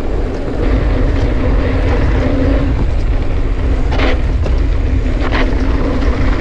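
Steady, loud rumble of wind buffeting a camera microphone and knobby tyres rolling on a dirt trail as a mountain bike is ridden, with a couple of short clicks about four and five seconds in.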